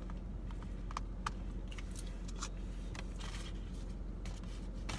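Scattered light clicks and rustles as a plastic sundae cup is fetched and handled, over a steady low hum inside a car cabin.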